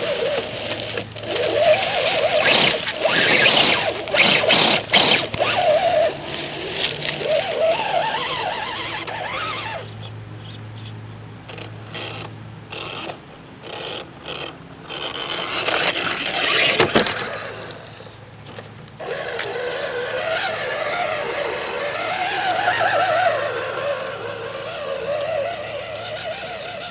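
Radio-controlled Axial Jeep Wrangler rock crawler's electric motor and gearing whining, the pitch wavering up and down with the throttle as it climbs, with scattered clicks and tyre scrabbling on rock and grit.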